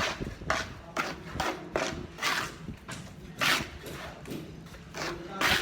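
A series of irregular knocks and clacks, about one or two a second, some sharp and some with a short scraping smear, over a low steady background.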